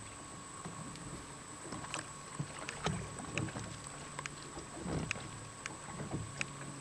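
Water lapping and slapping against the hull of a rigid inflatable boat lying almost still, with scattered small knocks and clunks and a faint steady low hum underneath.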